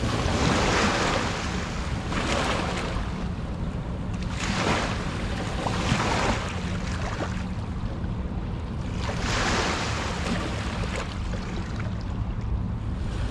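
Sea waves washing in, swelling and fading in repeated surges every couple of seconds, over a steady low rumble.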